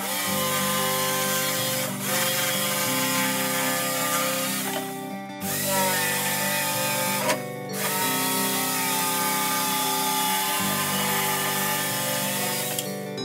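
Electric jigsaw cutting through a plywood board, running steadily with two brief stops, about five seconds in and again about seven and a half seconds in. Acoustic guitar music plays underneath.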